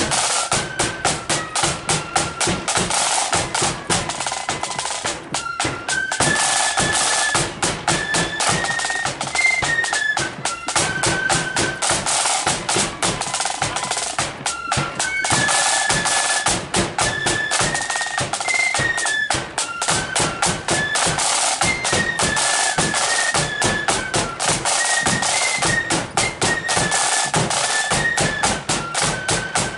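A marching flute band plays a tune, the flutes carrying a high stepping melody over fast, continuous snare drumming.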